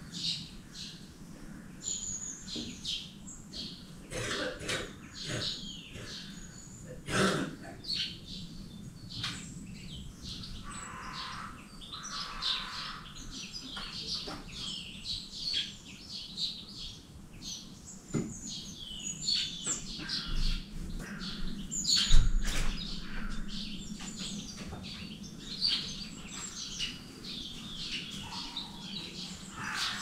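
Small birds chirping and calling in bare winter trees, many short high calls overlapping throughout. A few sharp knocks cut through, the loudest about two-thirds of the way in.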